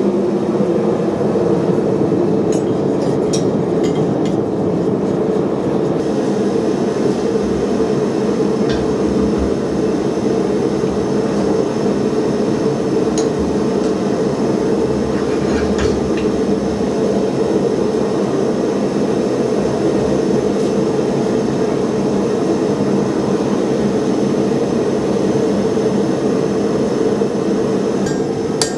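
Gas forge burner running steadily while a steel fire poker blank heats in it, with a few faint clinks.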